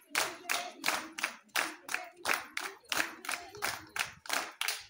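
A group of women clapping their hands together in a steady rhythm, about four claps a second, keeping the beat for dancers in a Punjabi folk dance circle.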